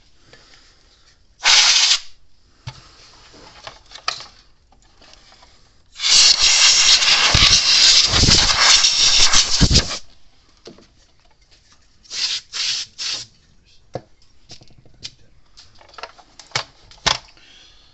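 Hissing spray bursts: a short blast, then one long blast of about four seconds, then three quick short blasts, with small clicks and handling noises between them.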